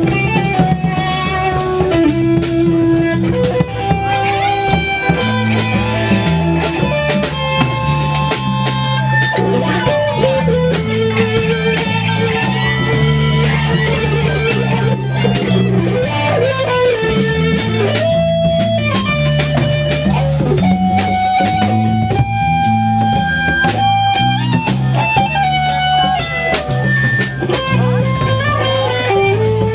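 Live rock band playing: electric guitars over a walking bass line and a drum kit.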